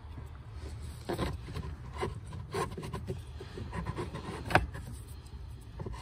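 New cabin air filters being slid by hand into the plastic filter housing behind the glovebox, their frames scraping and rubbing against the housing in short irregular strokes, with a sharper bump about four and a half seconds in.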